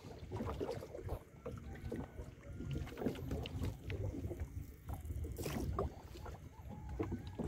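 Small boat moving on the water: low wind rumble on the microphone with scattered light knocks and small water sounds against the hull.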